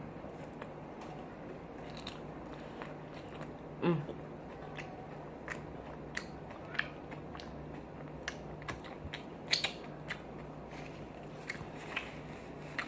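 Close-miked chewing and lip-smacking of a mouthful of food, with irregular wet clicks throughout. A louder short mouth sound comes about four seconds in, and a cluster of louder smacks about nine and a half seconds in.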